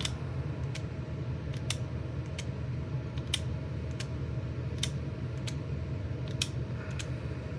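Hand-held wire strippers being handled and worked: about a dozen sharp, irregularly spaced clicks from the tool's jaws and mechanism, over a steady low hum.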